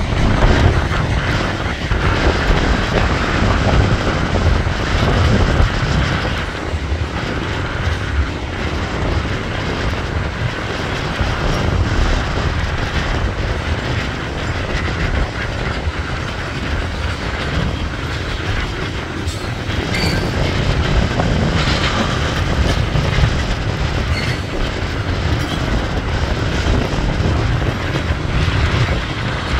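A long string of railroad tank cars rolling steadily past: a continuous rumble of steel wheels on the rails, with clacks as the wheels cross rail joints.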